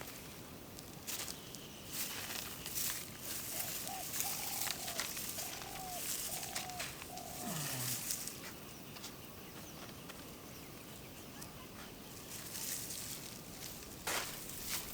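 Dry rice straw rustling and crackling, with an animal calling five short times in quick succession in the middle, followed by a brief falling call.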